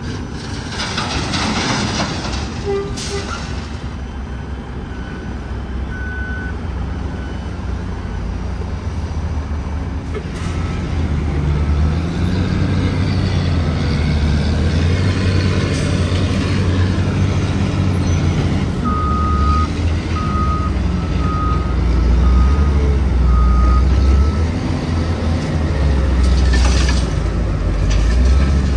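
Heavy diesel truck or earthmoving machine engine running and working harder, getting louder about halfway through, while a reversing alarm beeps: a few scattered beeps early on, then a run of five evenly spaced beeps a little past the middle. Short hissing bursts of air come near the start and again near the end.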